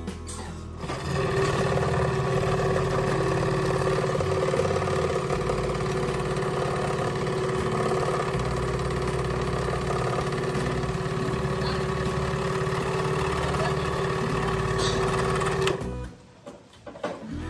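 Belt-vibrator exercise machine running: its electric motor drives the oscillating strap with a steady hum that starts about a second in and cuts off near the end.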